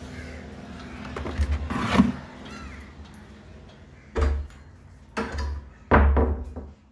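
A metal spoon scrapes and stirs chopped coconut pieces around a metal kadai as they roast, in several separate strokes: one about two seconds in, then three in quick succession near the end, the last being the loudest.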